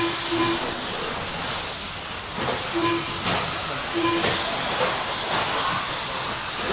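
Electric 1/10-scale RC trucks racing on a clay track: a steady hiss of motors and tyres, with a high motor whine that rises and falls about halfway through. Four short electronic beeps from the lap-timing system as trucks cross the line, two in quick succession at the start and single ones about three and four seconds in.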